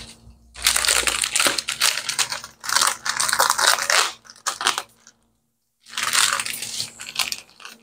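Plastic packaging crinkling and rustling as it is handled, in three bursts of about a second and a half each, over a faint steady low hum.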